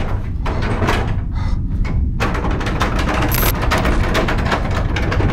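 Horror-film sound of a camera glitching: a steady low rumble with scattered crackles and clicks, which about two seconds in turns to dense hissing static with a brief high whine.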